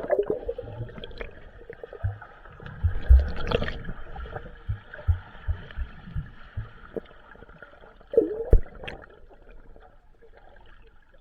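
Swimming-pool water gurgling and sloshing, with a steady hiss and scattered low, muffled thuds, the loudest a few seconds in and again past the middle.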